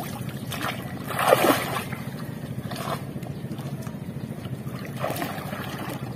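Water splashing and sloshing around a man wading waist-deep in sea water and handling bamboo stakes. There is one louder splash about a second in and smaller ones near the middle and end, over a steady low hum.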